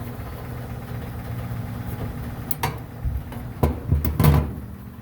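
Metal clicks and knocks from fitting a new drum support wheel and its lock ring onto the shaft of a commercial dryer, over a steady low machine hum. The knocks come in a cluster about two and a half to four and a half seconds in.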